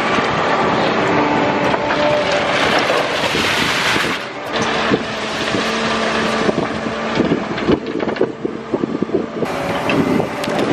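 A Caterpillar excavator's diesel engine and hydraulics running under load as it digs and swings rock, with rocks clattering against the steel bucket and truck bed, the clatter thickest in the second half.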